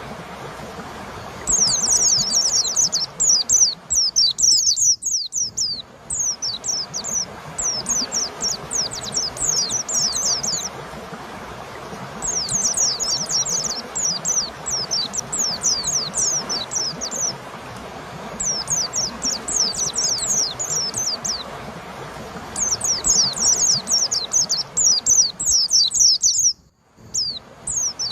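White-eye (pleci) singing: long, rapid runs of high, thin, downward-swept chirps in phrases of several seconds, separated by short pauses. The sound cuts out briefly twice, about five seconds in and near the end.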